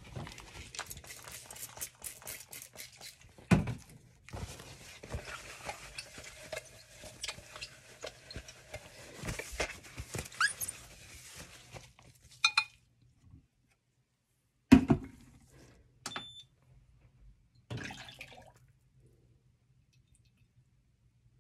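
Cooking oil being poured and handled between glass measuring cups, with small glass clinks and clicks throughout, then a few separate knocks as the cups are set down, the loudest about fifteen seconds in. A brief high beep follows a second later, and it goes quiet after that.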